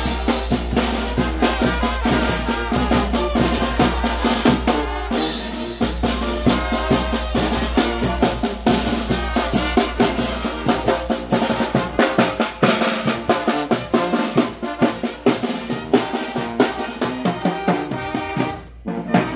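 Live Mexican banda playing: trumpets, trombones and sousaphone over tarola drums, bass drum and cymbal, with a steady driving beat. Near the end it breaks off briefly, then the brass comes back in.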